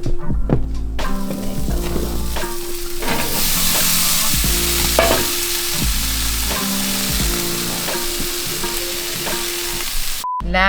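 Zucchini frying in a pan with a steady sizzle that starts about a second in and gets much louder about three seconds in. Background music plays underneath.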